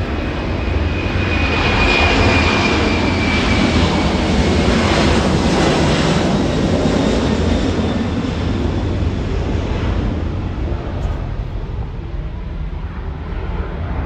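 Aircraft engine noise as an airplane passes close by, swelling to a loud, steady rumble and then slowly fading. A high whine falls in pitch during the first few seconds as it passes.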